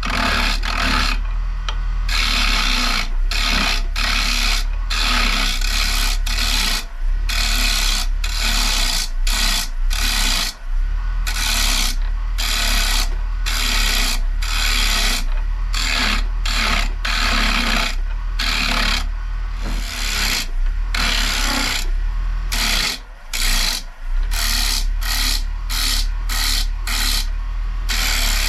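Rikon carbide turning tool scraping a spinning maple bowl blank on a Rockler 10x18 wood lathe, in many short passes with brief pauses, over the steady hum of the lathe motor.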